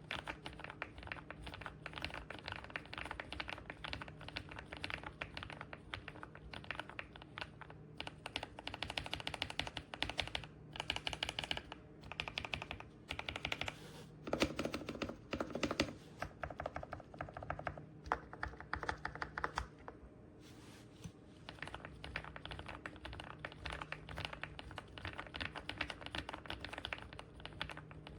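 Kisnt gasket-mounted mechanical keyboard with linear switches being typed on in fast, continuous keystrokes, with a few brief pauses and a louder flurry about halfway through.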